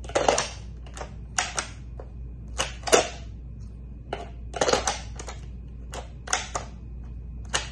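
Quick, irregular sharp clicks and clacks, often in close pairs, of a hard polymer duty holster being worked with a light-mounted pistol: the gun seating into and pulling from the holster's retention.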